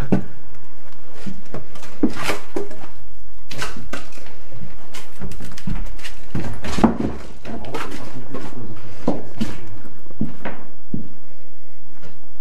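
Irregular knocks, scrapes and scuffs of handling and movement in a small room, with one loud knock about seven seconds in.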